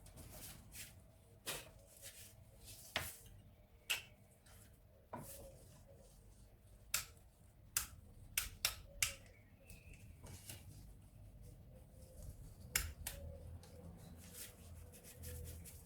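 Scattered sharp clicks and light taps at irregular intervals, over a faint low hum, as of tools and small parts being handled.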